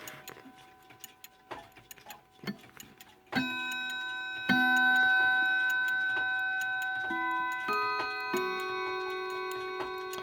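Key-wound mantel clock chiming: a few light clicks, then from about three seconds in a slow run of struck notes at different pitches, each ringing on and fading as the next is struck.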